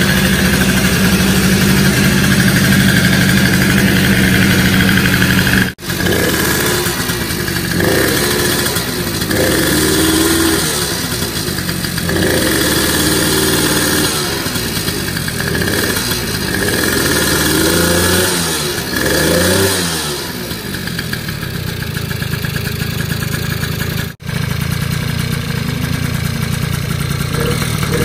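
Honda Dio two-stroke scooter engine, fitted with a 48mm big-bore kit and an aftermarket exhaust, running steadily at first. It is then revved up and down several times in a row before settling back to a steady run.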